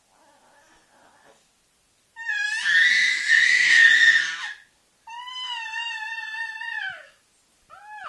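Infant squealing in loud, high-pitched bursts: a raspy screech about two seconds in, then a long steady squeal, and another wavering squeal starting near the end.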